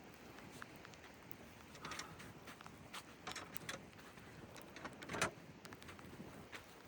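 Faint rustling and scattered light knocks of a person moving about and handling gear, about a dozen short sounds, the loudest about five seconds in.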